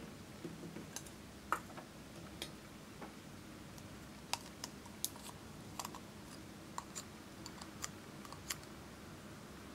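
Light, irregular clicks and taps of a thin metal spatula scraping lipstick out of its plastic tube, along with pieces of lipstick set into a glass dish.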